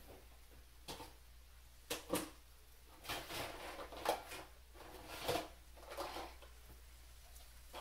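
Kitchen clatter: a string of short knocks and rattles, about one a second, from drawers, cupboards and containers being handled.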